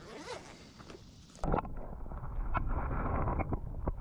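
Wind rumbling on the microphone with scattered light knocks and taps, starting abruptly about one and a half seconds in; before that, faint open-air background.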